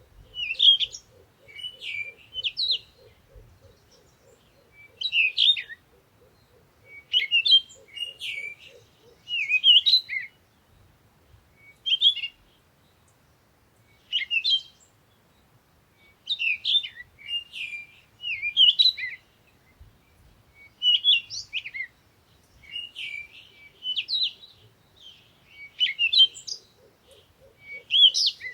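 A songbird singing short, warbling phrases over and over with brief pauses between them. A faint, low, fast pulsing trill runs underneath for the first third and comes back near the end.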